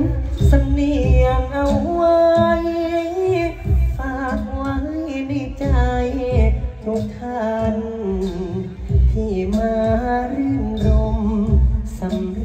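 Thai likay song: a lead singer's ornamented melody with wavering held notes over amplified backing music with a regular drum beat.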